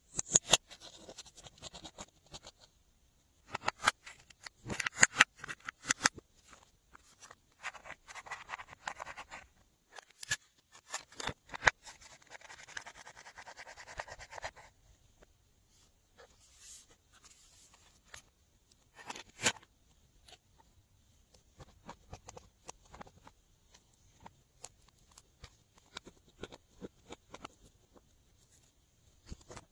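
Glossy slime being kneaded and stretched by hand: irregular sticky clicks, pops and crackles, in dense runs during the first half and then sparser.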